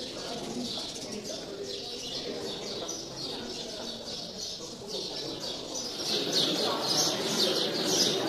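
A flock of small birds chirping continually in quick, overlapping chirps, louder from about six seconds in, over a faint murmur of voices.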